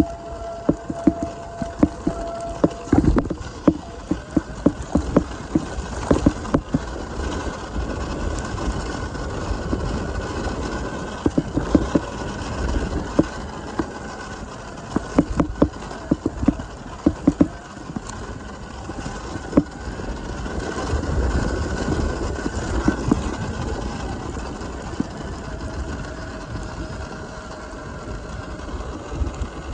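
Surron Ultra Bee electric dirt bike riding a rough dirt trail, with constant rapid knocks and rattles from the bike over the bumps. A faint electric-motor whine rises and falls with the throttle and drops in pitch near the end as the bike slows.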